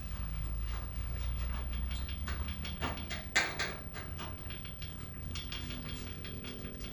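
A hand tool prying at a cut-out piece of car-body sheet metal: scattered light metallic clicks and scrapes, with a sharper knock about three seconds in, over a steady low hum.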